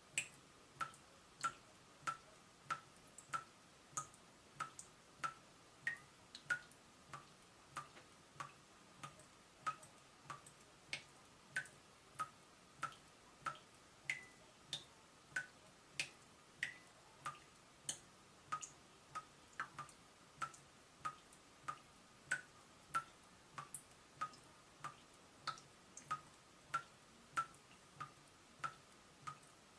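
Leaking tap dripping steadily, about one and a half drops a second, each drop a short plink whose pitch varies from drop to drop.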